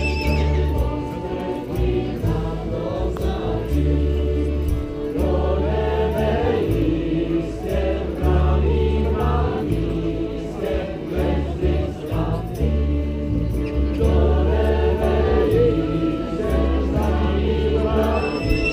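A group of street carollers singing a Czech Christmas carol together, over a low bass line of notes held a second or two each.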